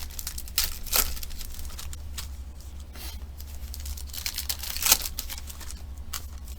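Trading card pack wrappers crinkling and tearing open, with sharper rips about a second in and again near five seconds. A steady low hum runs underneath.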